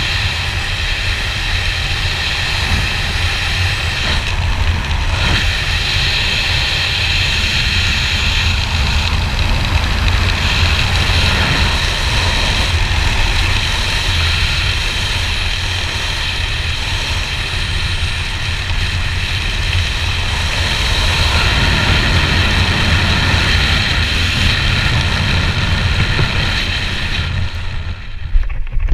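Steady, loud wind noise buffeting a helmet-mounted camera's microphone as a skydiver descends under an open parachute canopy. Near the end a few sharp knocks come with the landing on the sand, and the wind noise cuts off suddenly.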